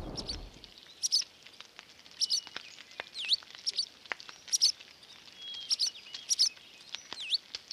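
Small bird chirping, repeated short high chirps with swooping notes about once a second, with a few faint clicks in between. A low rumble dies away in the first second.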